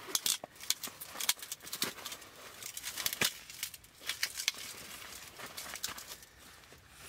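Folding camp cot being unfolded and set up: fabric rustling with an irregular string of sharp clicks and knocks from the frame, the loudest in the first half.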